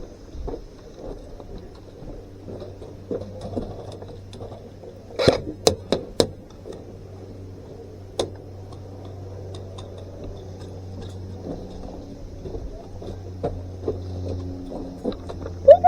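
Faint shuffling over a steady low hum, broken about five seconds in by a quick string of four sharp snaps of airsoft fire and one more snap a few seconds later. A short voiced sound comes right at the end.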